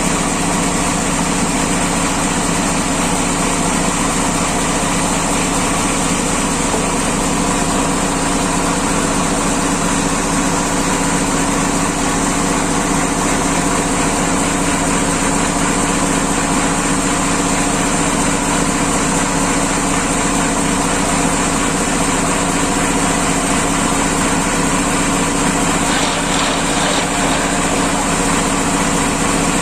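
Sawmill machinery running steadily and loudly, an even mechanical drone that holds without change.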